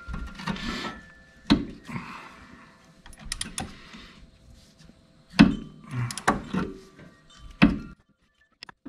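Hand socket wrench being worked on a rusty rear-suspension bolt: scattered metallic clicks and clanks of the tool and socket. Sharper knocks come about a second and a half in, around five and a half and six seconds, and near seven and a half seconds. The one at about five and a half seconds is the loudest.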